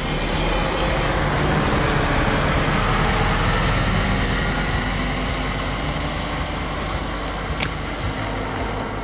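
A highway coach pulling away and driving off. Its diesel engine and tyre noise are loudest at first, then slowly fade as it moves into the distance.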